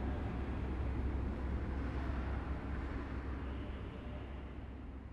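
A steady low rumble with a hiss above it, with no clear rhythm or tone, fading out gradually over the last couple of seconds.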